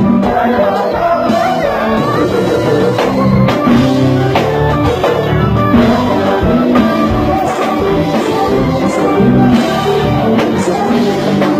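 Live konpa band playing, with a drum kit beating steadily under the other instruments and a singer's voice.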